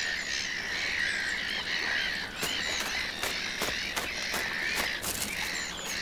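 Black-headed gull colony calling: many short calls overlapping at once. From about halfway through, sharp clicks come in among the calls at a quick, uneven pace.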